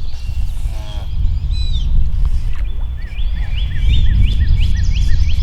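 A songbird calling in a series of short repeated chirps, about two a second, starting about halfway in, over a steady low rumble.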